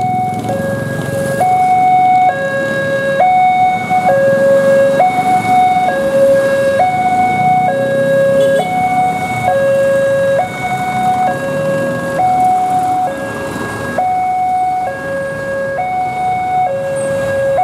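Railway level-crossing warning alarm sounding a steady two-tone signal, alternating between a higher and a lower tone each held just under a second. It warns that the barrier is down and a train is approaching.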